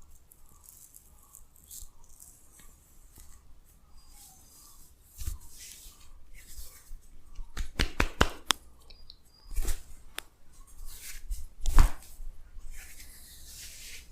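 Hands rubbing and brushing over hair and skin in a head and face massage, with scattered sharp clicks and a quick run of several clicks about eight seconds in.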